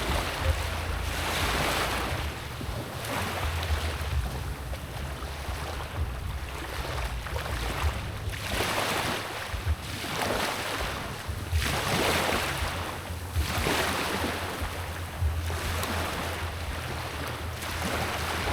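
Sea waves washing in repeated surges about every one and a half to two seconds, over a steady low rumble.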